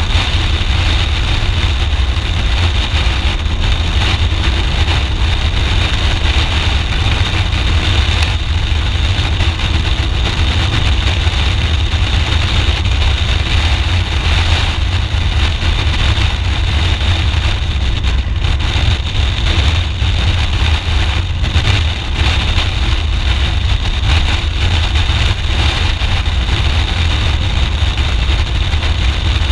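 Steady wind rush on a helmet-mounted camera microphone at highway speed, with a BMW R 1200 GS Adventure's boxer-twin engine running at a constant cruise underneath.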